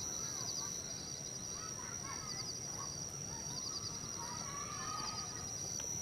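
Natural outdoor ambience with birds calling in short twittering phrases, over a steady high-pitched drone and repeated rapid chirping trills.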